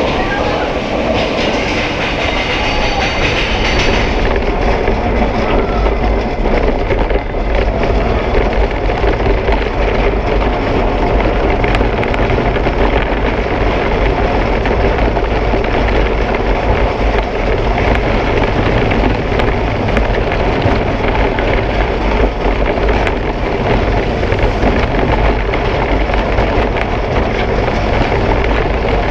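Vekoma mine train roller coaster running along its steel track, heard from on board: a steady rumble and clatter of the wheels, with a brief higher hiss in the first few seconds.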